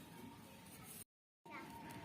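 Near silence: faint background noise with a thin steady tone, cut to dead silence for a moment about a second in at an edit.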